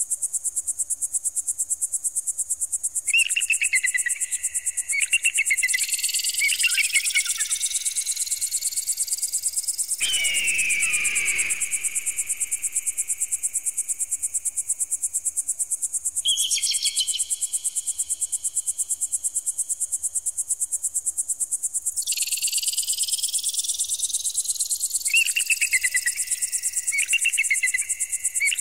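Synthetic bird-repeller sound: a steady, rapidly pulsing high-pitched tone like crickets, with slow rising sweeps laid over it twice. Short warbling calls come in a few times, and a single falling screech sounds about ten seconds in.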